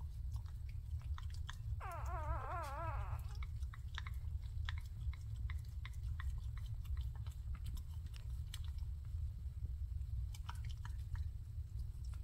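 Newborn miniature dachshund puppies nursing: wet suckling and smacking clicks, busiest in the first few seconds and again near the end. About two seconds in, one puppy gives a single wavering squeal lasting about a second and a half. A steady low rumble runs underneath.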